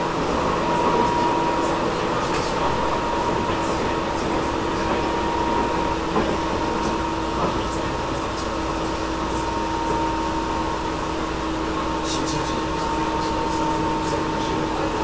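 Tobu 10000 series electric train running between stations, heard from inside the car above the main controller: a steady running rumble with two steady humming tones and the air conditioning running. A few faint clicks come near the end.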